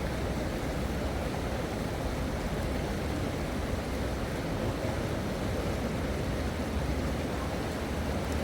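Steady rushing of flowing river water, an even noise with a low rumble and no distinct crackles or knocks.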